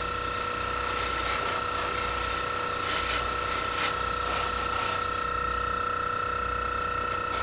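Airbrush spraying paint at about 25 PSI: a steady hiss of air over the constant whine of its small compressor running.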